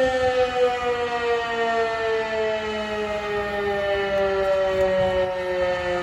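Civil-defence siren sounding the fire alarm that calls out volunteer firefighters: one long wail whose pitch slowly falls.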